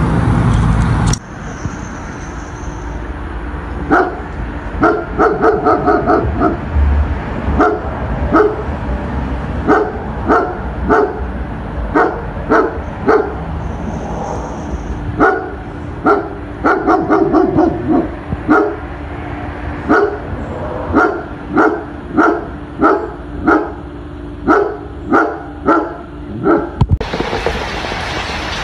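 A dog barking again and again, in quick runs of barks at times and in single barks about one a second near the end. It opens with about a second of loud wind-like noise, which cuts off suddenly.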